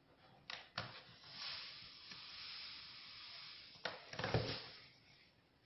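Coarse semolina poured from a measuring glass into a baking tray: a soft hiss of falling grains for a couple of seconds, with a few light knocks of the glass before and after.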